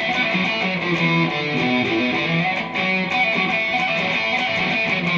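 Telecaster electric guitar through a Marshall amp, playing a lead line: a run of single notes that change pitch several times a second.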